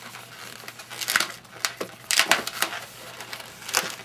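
Red 260 latex modelling balloon squeaking and rubbing against itself and the hands as it is bent into a loop and twisted, in a string of short, irregular squeaks, loudest about two seconds in.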